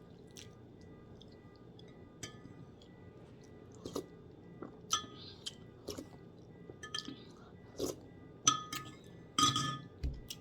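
Teaspoon clinking against a cup of tea: a run of sharp clinks starting about four seconds in and coming more often toward the end.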